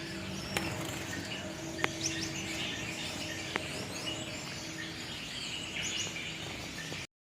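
Many small caged Gouldian finches chirping and calling in short, soft notes, with a few sharp clicks.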